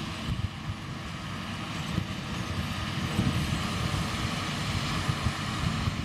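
John Deere 7530 tractor running steadily as it pulls a Massey Ferguson 2270 large square baler at work, a low continuous rumble with irregular low thumps, partly wind buffeting the microphone.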